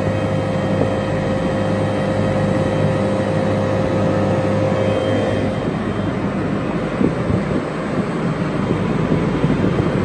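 Gree GMV-X VRF air-conditioning outdoor unit running just after commissioning: a steady mechanical hum from the compressor and fans, with a higher tone that stops a little past halfway.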